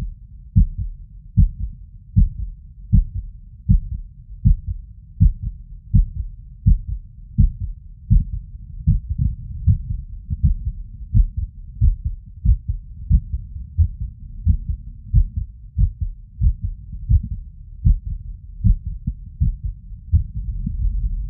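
Heartbeat heard through a stethoscope's diaphragm over the tricuspid valve area after exertion: a run of short, low beats at a little over one a second, from a heart with an arrhythmia.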